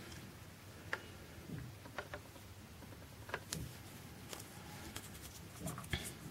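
Faint scattered clicks and taps, roughly one a second, from a plastic syringe handled against a plastic tub of water as Daphnia are drawn up into it.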